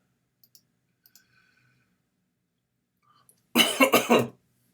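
A man with a head cold coughing in a short loud fit of several quick coughs, about three and a half seconds in, after a few faint clicks.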